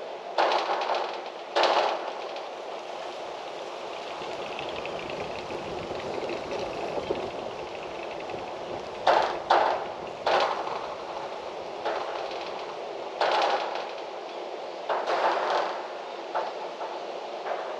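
Wind blowing steadily outdoors, broken by a dozen or so short, sharp gusts or rushes that come and go irregularly.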